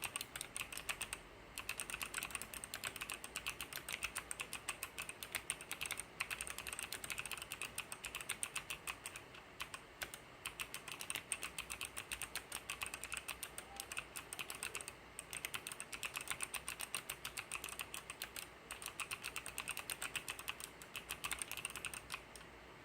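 Fast typing on a Hansung MKL16S mechanical keyboard with Kailh optical pink switches: a steady stream of quick key clacks with a few brief pauses, stopping near the end.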